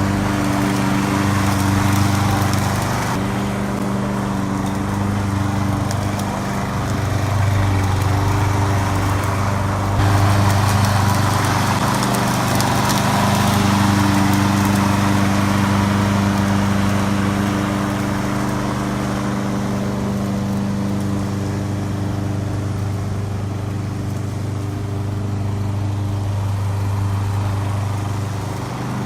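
Engine of a remote-control slope mower running steadily as it mows. Its level shifts a little a few times.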